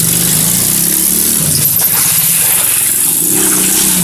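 Chinese 110 cc quad bike's small single-cylinder engine running while it is ridden; the engine note falls off about a second in and picks up again near the end.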